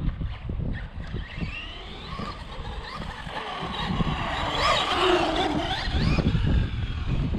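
Brushless electric motor and drivetrain of a 1/10 scale Remo Hobby 1035 M-Maxx RC truck on 3S, whining up and down in pitch as it accelerates and slows, louder in the second half. The truck is running rear-wheel drive only, with the centre drive shaft loose after losing its grub screw.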